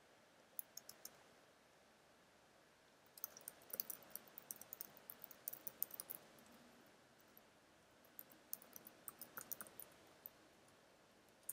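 Faint typing on a computer keyboard: a few scattered key clicks, then runs of quick keystrokes about three seconds in and again about eight seconds in.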